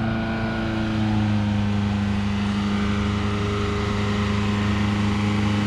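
Vehicle engine running steadily at an even, unchanging pitch, a constant drone.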